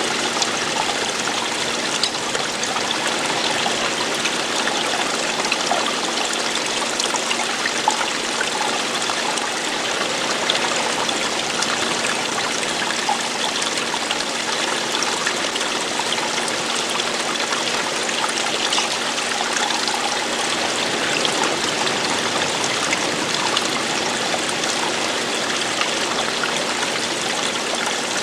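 Running water, steady and unbroken, with small splashes and trickles scattered through it.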